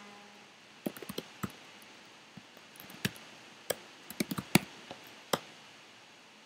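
Keystrokes on a computer keyboard as a short terminal command is typed. There are scattered sharp clicks, with a quick run about a second in and another cluster around four seconds in.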